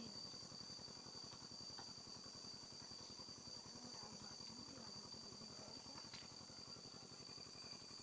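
Faint, steady, high-pitched chorus of insects trilling without a break, with a low background murmur beneath.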